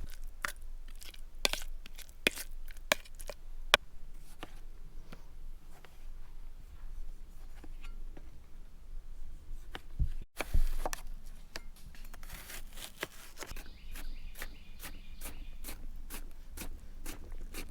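Irregular clicks and knocks of kitchen utensils working food for guacamole, a fork mashing avocado in a bowl or a knife cutting on a board, with one louder knock about ten seconds in.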